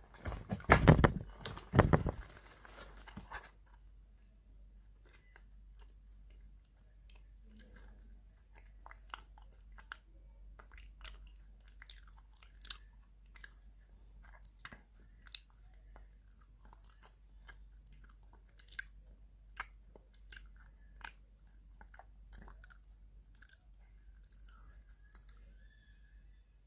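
A person biting and chewing a crunchy snack close to the microphone: many short, sharp crunches at an irregular pace. It opens with a few seconds of loud rustling and handling noise with two heavy thumps.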